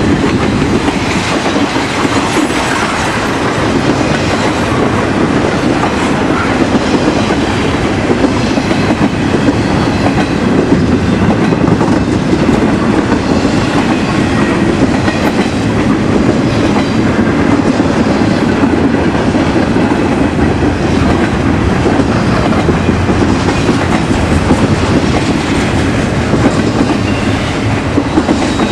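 Train cars rolling past close by, a loud steady rumble of steel wheels on the rails with a rapid clickety-clack over the rail joints.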